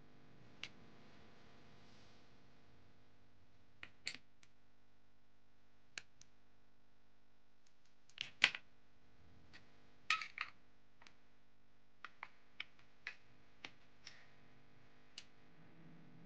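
Candle cups and pieces of wax handled and set down on a wooden tabletop: a dozen or so scattered light clicks and taps, the loudest about halfway through, over a faint steady hum.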